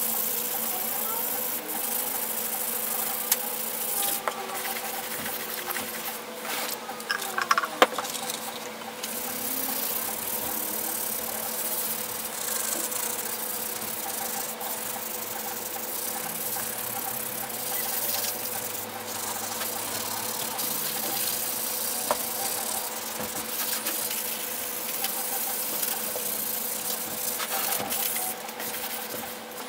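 Gloved hands scrubbing the metal housing of a vintage Porter-Cable BB10 belt sander with a cloth and powdered cleanser: rubbing and scraping over a steady background hum and hiss, with a few sharper knocks about seven to eight seconds in.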